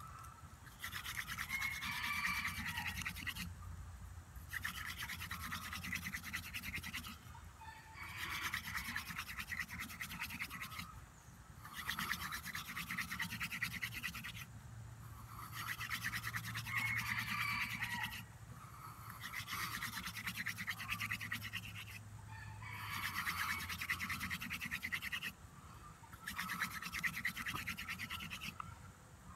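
Hand-drill friction fire: a goldenrod spindle spun between the palms, grinding into a cedar hearth board. It comes in about eight runs of two to three seconds each, with brief pauses between them.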